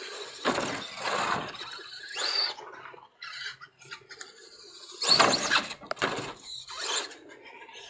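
RC truck driving and jumping off a plywood ramp: separate bursts of motor whine and tyre noise, the loudest about five seconds in as it hits the ramp and launches.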